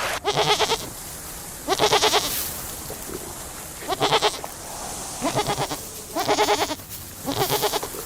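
A farm animal bleating: six short, quavering calls of about half a second each, spaced a second or so apart.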